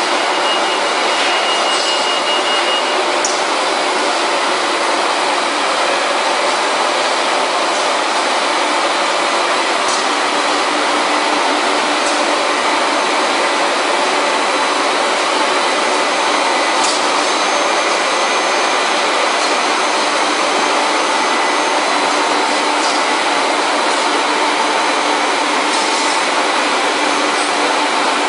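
Textile finishing machinery running: a steady, loud mechanical noise with a few faint steady whines and occasional light clicks.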